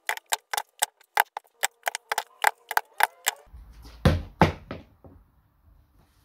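Rapid, even ticking, about four ticks a second, that stops about three and a half seconds in. Then a flipped plastic water bottle knocks twice against the plastic bottle stack and falls off, a failed flip.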